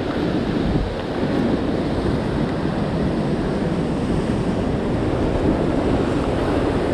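Ocean surf washing over a rock ledge, steady and close, with wind buffeting the microphone.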